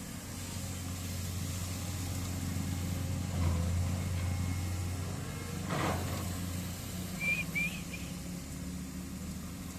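Excavator's diesel engine running steadily, louder for a moment about three and a half seconds in. There is a brief rushing noise near six seconds and a few short high chirps just before eight seconds.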